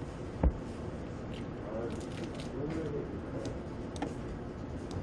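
Someone chewing a mouthful of seaweed-wrapped triangle kimbap over a steady room hum, with one sharp low thump about half a second in and faint voices in the background.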